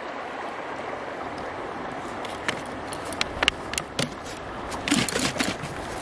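A plastic bottle being handled, uncapped and poured, giving a string of sharp plastic clicks and taps from about two seconds in, thickest near the end. Behind them runs a steady rush of river water.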